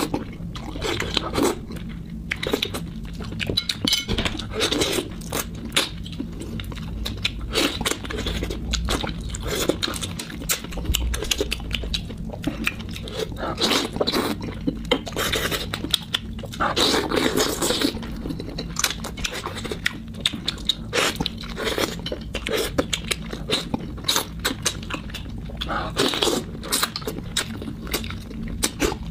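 A person eating frog meat in a thick sauce, biting and chewing it off the bones, with many short, quick mouth clicks at an uneven pace.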